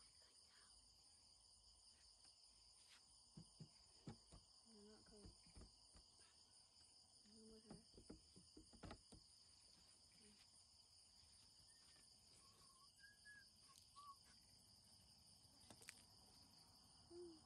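Faint night chorus of crickets and other insects calling steadily in several high bands, with a few scattered faint clicks and soft knocks.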